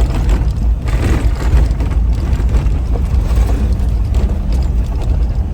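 Vehicle driving over a rough unpaved mountain road: a loud, steady low rumble.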